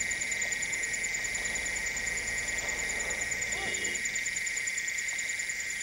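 Dusk insect chorus. Its main part is a continuous high trill of the kind called 'worm song' (suara cacing) in Indonesia, which is made by mole crickets. Over it run a faster pulsing insect trill and a very high chirp repeating about every three-quarters of a second, with one faint short call about three and a half seconds in.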